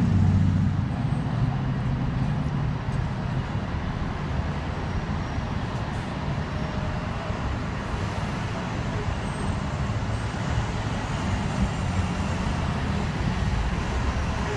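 Steady low rumble of street traffic, buses and cars, heard from aboard a Hong Kong double-decker tram.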